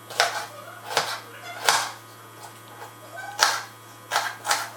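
Kitchen knife slicing an onion on a cutting board: about six sharp chops at an uneven pace.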